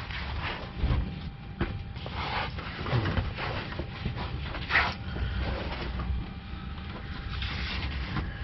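Hand-handling noises: scattered rustles, scrapes and light knocks as hands work around a wiring connector under the vehicle, over a low steady background rumble.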